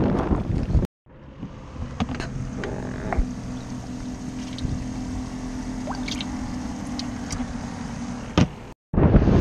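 Wind buffeting the microphone, cut off abruptly about a second in. Then a quieter steady low hum with a few scattered clicks, and the wind noise returns abruptly near the end.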